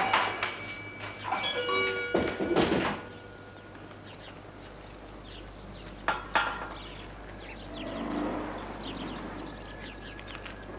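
Shop-door bell ringing with several overlapping tones as the shop door swings and shuts with thuds, dying away within about three seconds. A sharp knock or clatter comes about six seconds in.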